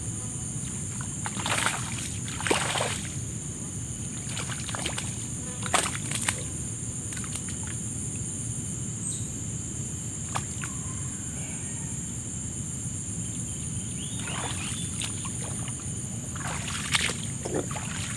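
Intermittent splashing and sloshing in shallow, weedy water as a small peacock bass is played in and landed by hand, in short bursts a few seconds apart, the loudest about a third of the way through and near the end. A steady high-pitched whine and low hiss run underneath.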